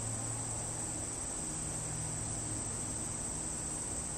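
Crickets chirring steadily in one high, even band.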